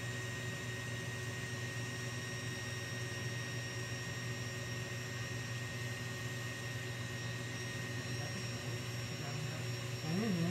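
KitchenAid stand mixer with its wire whisk running steadily, beating egg whites into meringue while sugar is poured in gradually. The motor makes an even hum with a few fixed whining tones. A voice comes in right at the end.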